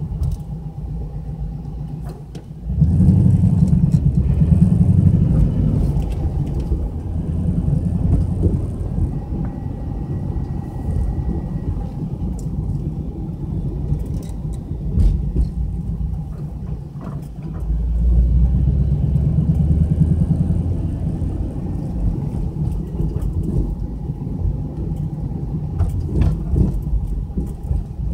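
Car engine and road noise heard from inside the cabin: a steady low rumble that swells as the car pulls away about three seconds in, and again about two-thirds of the way through.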